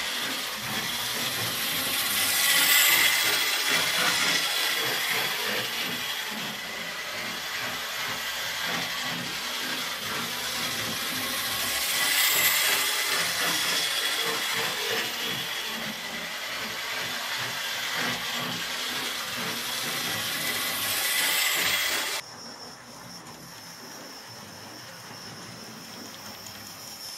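Model railway locomotives running on the track: a steady rushing whir of small electric motors and wheels that swells louder twice as a train passes close. About three-quarters of the way through it cuts off suddenly, leaving a quieter run with a thin high whine.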